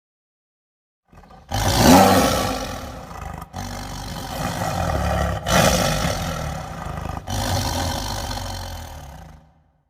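A large animal roaring: about four long roars back to back, starting about a second in.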